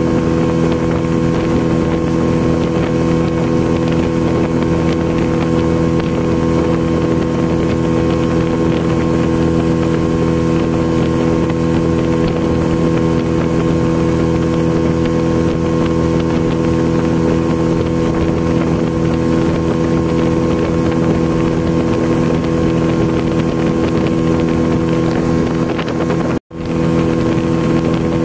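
40 hp outboard motor running steadily at cruising speed while towing, its engine note holding one even pitch, with wind buffeting the microphone. The sound cuts out for a split second near the end.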